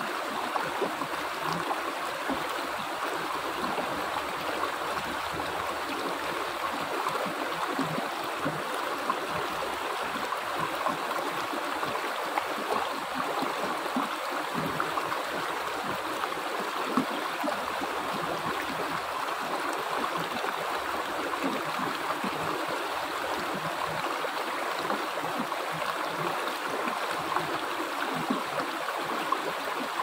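Rocky mountain stream flowing over boulders in small cascades: a steady rush of water with small irregular splashes.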